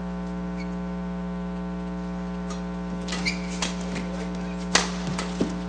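Steady electrical mains hum on the broadcast audio. From about three seconds in come several sharp clicks of badminton rackets striking the shuttlecock in a rally, the loudest a little before the end.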